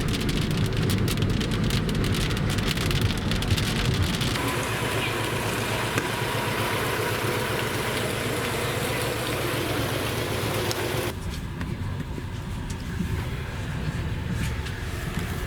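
Car driving in the rain, heard from inside: steady road and engine rumble with rain pattering on the car. The sound changes abruptly about four seconds in and again near eleven seconds.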